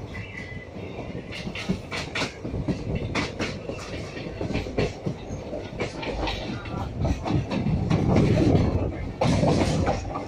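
Moving passenger train coach heard from its open door: steady rolling rumble of the wheels with a run of irregular clickety-clack knocks as they pass over rail joints.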